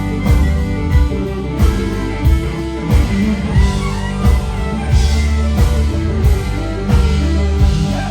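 A live rock band playing: electric guitar, bass and drum kit driving a steady beat.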